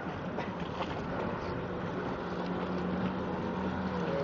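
Motorboat engine running at speed as the boat passes, a steady low hum that comes up about halfway through and grows slightly louder, over a steady rushing noise.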